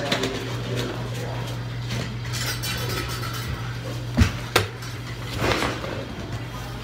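Metal dental hand instruments clinking and scraping, with two sharp clicks about four seconds in, over a steady low hum.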